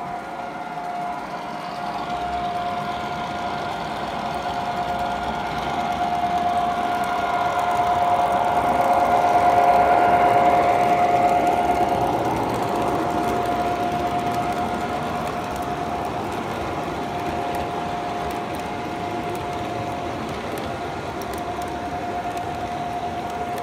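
O-scale model train running: an MTH Rio Grande F-unit diesel set with its smoke units going, pulling passenger cars with wheels rolling on the track. There is a steady whine over a rumble that grows louder as the cars pass close about ten seconds in, then eases.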